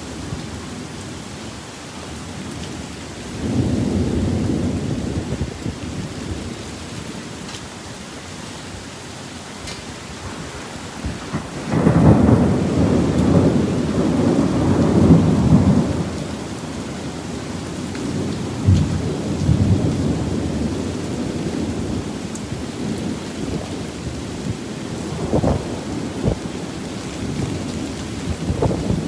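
Steady rain with rolling thunder. A rumble comes about three seconds in; the loudest starts suddenly about twelve seconds in and rolls on for about four seconds, followed by fainter rumbles and a few short cracks.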